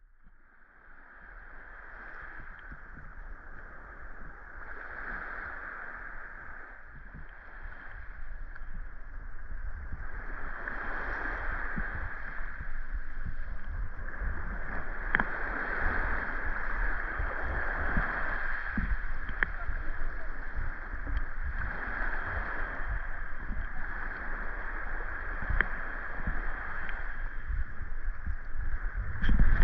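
Sea water washing and splashing, swelling every few seconds as waves come in, with wind buffeting the microphone.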